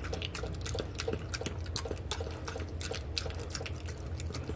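Miniature schnauzer eating soft homemade dog food from a stainless steel bowl: quick irregular chewing and smacking clicks, several a second, over a low steady hum.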